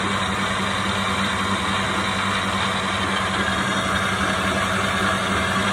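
Faber soup-maker blender's motor running at a steady set speed, blending cooked tomato soup in the jug: an even whir with a low hum underneath.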